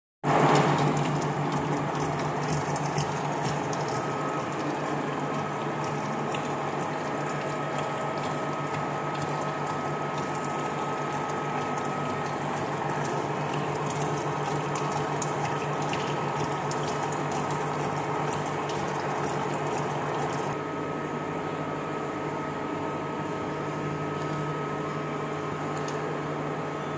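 Spiral bevel gear cutting machine running as its cutter generates the teeth of a spiral pinion under a flood of cutting oil: a steady machine hum with the hiss and splash of the oil and fine ticking of the cut.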